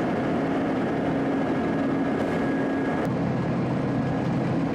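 Heavy road-construction machinery running steadily, a diesel engine with a constant low hum.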